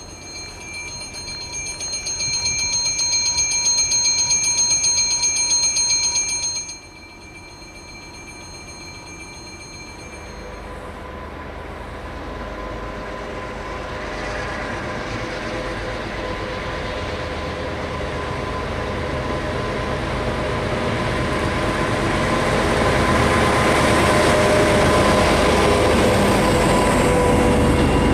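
Freight wagons rolling past with a bell ringing fast. From about ten seconds in, a D445 diesel locomotive hauling empty car-transporter wagons approaches and grows steadily louder, and its wagons are rumbling and clattering past near the end.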